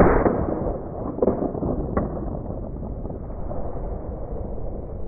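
A muffled shotgun shot, fired at a duck coming in over the water. Fainter sharp knocks follow about a second and two seconds in, over a steady low rumble of wind on the microphone.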